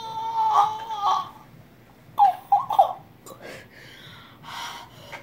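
A child's wordless vocal outburst: a long high-pitched wavering sound that falls away after about a second, then three short sharp voiced bursts about two seconds in, then breathy gasps.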